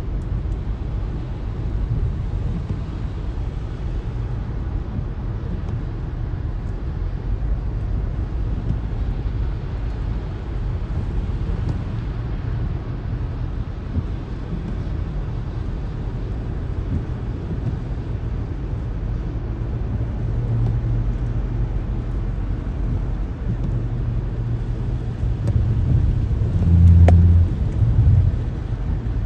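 Car driving, heard from inside the cabin: a steady low rumble of engine and tyres on the road. Near the end a louder low hum swells for about two seconds.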